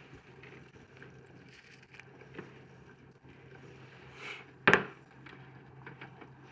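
Quiet kitchen handling sounds over a faint steady low hum: small ticks and taps, a brief rustle, then one sharp knock, like an object set down on a hard counter, a bit past the middle.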